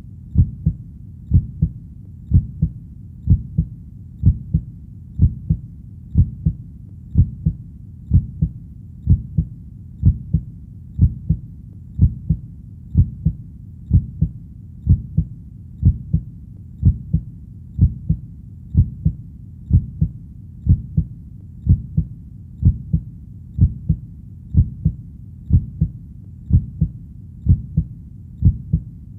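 Heartbeat beating steadily at a resting pace, a little under once a second. Each beat is a low double thud, over a faint steady low hum.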